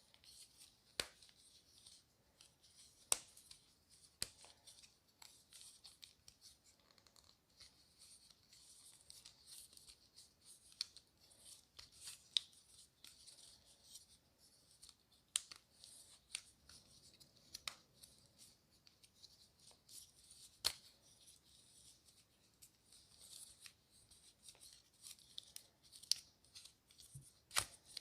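Silicone pop-it fidget toy bubbles being pressed through, making irregular sharp pops a second or more apart, over faint rustling of fingers on the silicone.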